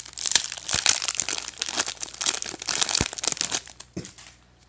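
Foil wrapper of a Magic: The Gathering booster pack being torn open and crinkled: dense crackling with a few sharp snaps, stopping about four seconds in.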